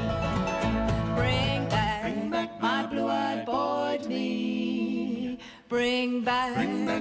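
Bluegrass band playing live on acoustic guitar, mandolin, dobro and upright bass, with voices singing. The low bass falls away about two seconds in, leaving sliding, bending lines over the strings, and there is a short gap about five and a half seconds in.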